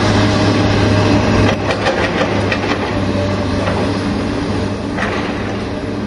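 Backhoe loader's diesel engine running steadily under load while the digging arm works, with a low hum. From about a second and a half in, a run of knocks and clatter joins it.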